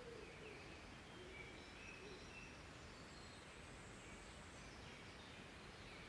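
Faint, distant birds singing: scattered short, high whistled notes over a steady, low background of outdoor ambience.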